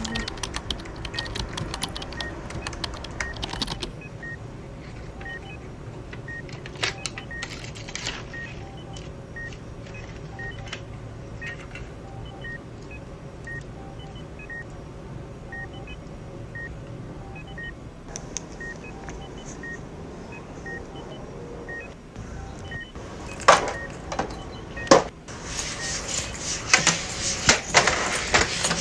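A short electronic beep repeating about once a second, steady and faint, stopping a little over 20 seconds in. Near the end, louder knocks and clatter, as of things being handled or a door shutting, take over.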